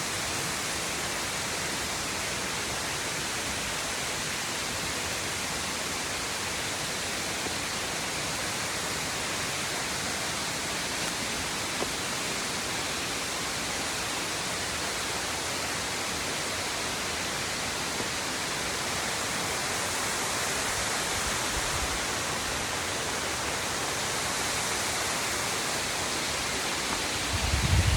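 Waterfall: a steady rush of falling water, an even hiss. A brief low bump near the end.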